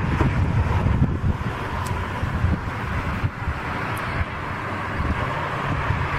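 Gusty wind buffeting the microphone over a steady, distant jet airliner's engine noise as the plane moves along the runway.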